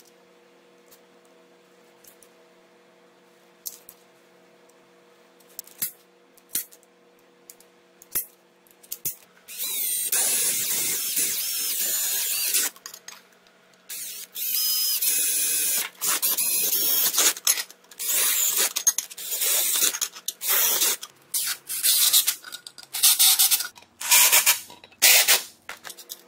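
Cordless drill boring holes through a metal plate clamped in a bench vise. A long run of drilling starts about ten seconds in, then repeated shorter bursts follow. Before that there are only a few light clicks.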